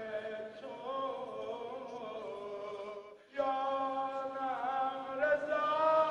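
A man's voice singing a slow devotional song in praise of Imam Rida, drawing out long held notes, with a brief break about three seconds in.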